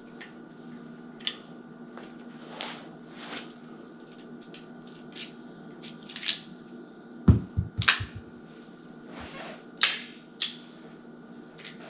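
Metallic clicks and clatter of a Smith & Wesson 642 five-shot .38 Special revolver being reloaded with a speed loader: scattered sharp clicks, a quick run of about six clattering knocks about seven seconds in, then a few more sharp clicks.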